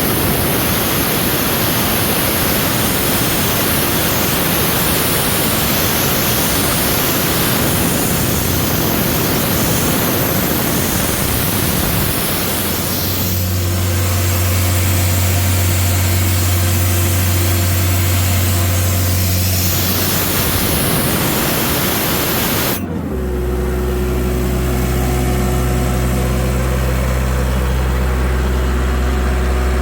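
Sullair 185 rotary screw air compressor's John Deere 4024T four-cylinder diesel running steadily under a loud rushing hiss. The hiss cuts off suddenly about 23 seconds in, and the engine runs on alone at a lower, steady pitch.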